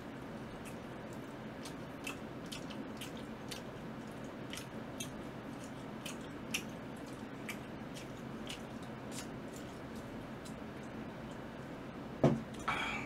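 Chewing pizza and fried chicken, with scattered small wet mouth clicks over a steady low background hum. About twelve seconds in, a single loud knock as a cola can is lifted from the table, followed by a short rustle.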